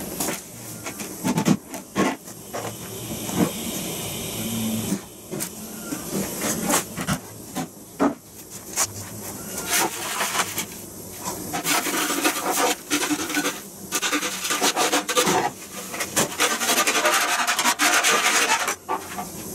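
Old beeswax comb being dumped from a plastic bucket and a stainless steel pot into a wax-melting kettle, then scraped out of the pot by hand: irregular rustling and scraping with scattered knocks, heaviest and most continuous in the last several seconds.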